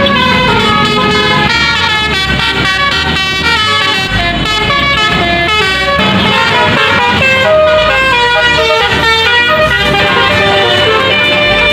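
Tourist bus multi-tone 'telolet' air horns playing a tune, sounding continuously as a rapid run of notes stepping up and down in pitch.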